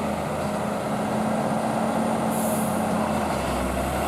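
Large bus engine running steadily, with a short burst of hissing air a little over two seconds in.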